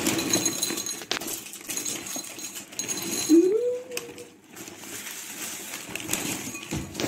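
Small square wheat cereal pieces poured from their bag into a ceramic bowl, pieces pattering and clinking in the bowl, with the bag rustling. About three seconds in, a short rising whine is heard over it.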